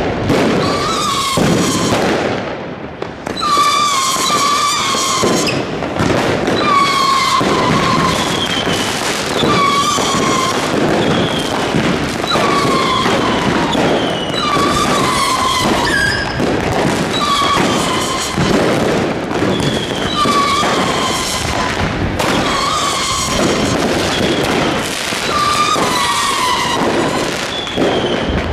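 New Year's Eve fireworks going off in the street: a dense, continuous run of bangs and crackling. A short falling tone recurs every second or two over it.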